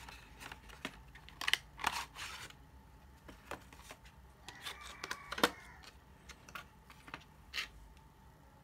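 An SSD's clear plastic packaging tray and cardboard box being handled as the drive is unpacked: scattered clicks, taps and short crinkles, the sharpest about five and a half seconds in.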